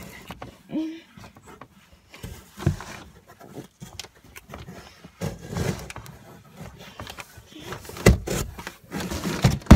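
Irregular bumps, knocks and rustling of cardboard as someone shifts around inside a cardboard box fort, mixed with handling noise from the phone, with the heaviest thumps near the end.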